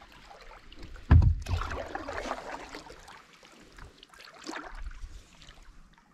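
Paddle strokes from an open canoe: water rushing and splashing as the blade pulls through, twice, with a sharp knock about a second in, the loudest sound.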